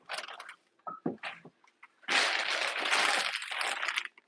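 Plastic bag crinkling and rustling, a dense stretch of about two seconds, after a few light knocks and handling noises in the first second or so.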